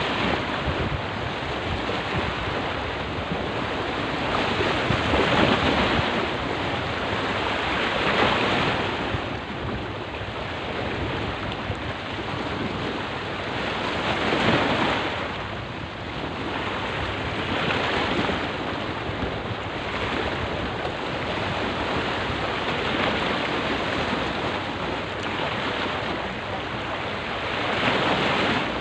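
Small sea waves washing in and splashing against the rocks at the foot of a concrete seawall, swelling louder every few seconds.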